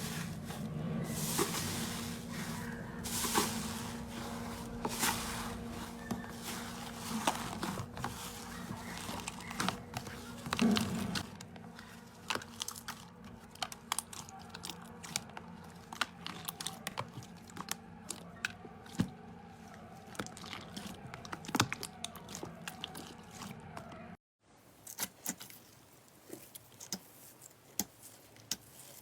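Slime being squeezed and pressed by hand, making many small crackles and pops over a faint steady hum. It cuts abruptly about 24 seconds in to a quieter clip with scattered clicks.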